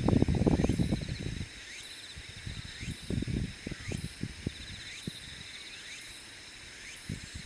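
Insects singing in a steady, repeating high-pitched pattern of fast trills and short rising chirps. Wind rumbles on the microphone for the first second and a half, with a few low thumps a few seconds in.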